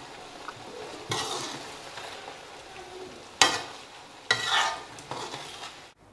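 Red Thai curry of coconut milk and curry paste sizzling in a pan as it is stirred: a steady hiss with three sudden louder swells that fade away, about a second in and twice more past the middle. It cuts off abruptly just before the end.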